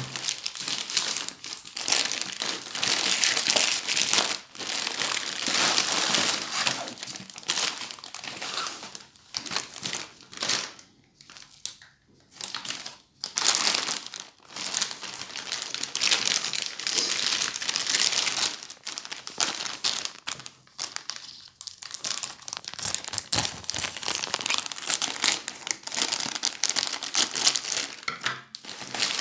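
Thin plastic bags, a black bag and clear plastic wrapping, crinkling and rustling as they are handled and pulled open around an object. The rustle comes in long runs with a couple of short lulls.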